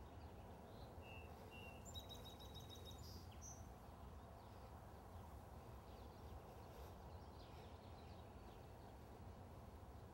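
Near silence: faint outdoor ambience with a steady low background rumble. A small bird chirps faintly in the first few seconds, two short notes and then a quick run of rapid repeated high notes.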